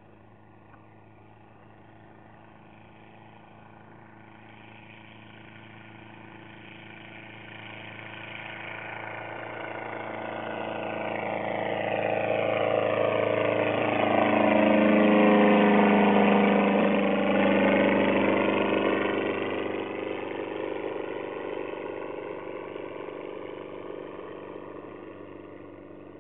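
Affordaplane ultralight's engine and propeller at full power. The sound builds steadily as the plane approaches, is loudest about halfway through as it passes low overhead, then fades as it flies off into the distance.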